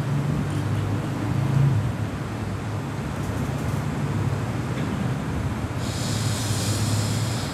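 A steady, low rumbling noise, with a hiss joining it near the end.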